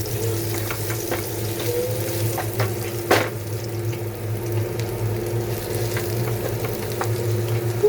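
Onions frying and sizzling in hot oil in a pan, stirred with a spatula that clicks against the pan, with one louder knock about three seconds in. A steady low hum runs underneath.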